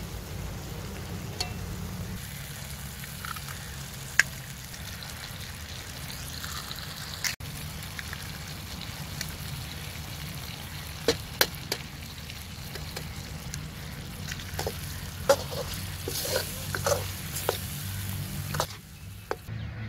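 Potato and egg curry sizzling and bubbling in a steel karahi over a wood fire, with sharp clicks and scrapes of a steel ladle against the pan, coming more often in the last few seconds as it is stirred.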